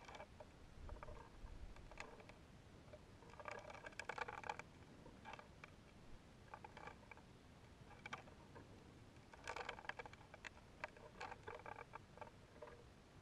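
Near silence broken by faint, irregular clicks and creaks, bunched most thickly about four and ten seconds in: the swinging balloon payload creaking against its GoPro housing.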